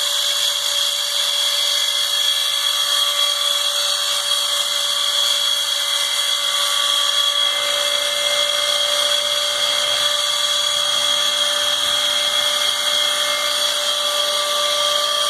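Homemade bicycle-chain-driven CNC machine running: a steady, high-pitched machine whine whose tones shift slightly about halfway through and again near the end.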